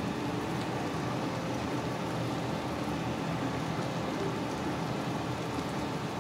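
Steady rushing noise with a faint low hum, unchanging throughout.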